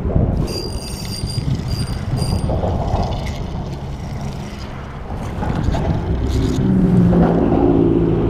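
Wind buffeting the microphone in a rough low rumble, with a few short high squeaky chirps in the first couple of seconds and a low steady drone coming in about seven seconds in.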